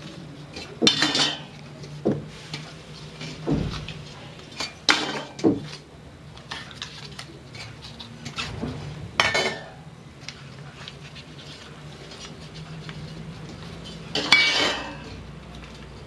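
Thin fluted tin baking molds clinking and rattling as the baked cakes are pulled out of them and the empty molds are set down on a metal wire cooling rack. The clatters come one at a time, every second or few, with gaps between them.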